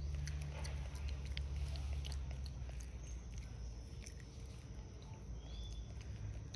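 Faint wet clicks and smacks from a nursing macaque mother and infant, over a steady low rumble that eases off after about two seconds.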